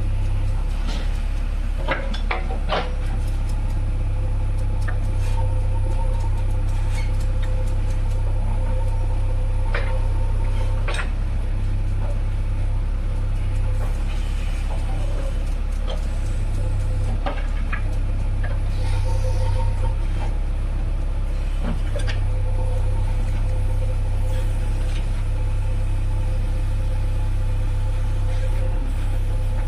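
JCB 3DX backhoe loader's diesel engine running steadily under work with a low rumble, with a few sharp knocks and clanks.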